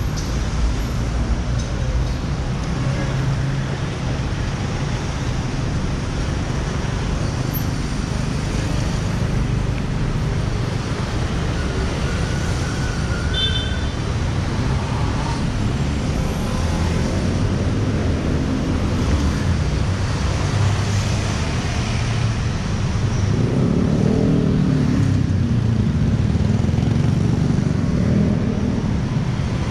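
Steady traffic on a busy city road, engines and tyres in a continuous low rumble, with a few brief high tones midway. Near the end a heavier vehicle passes close and the rumble grows a little louder.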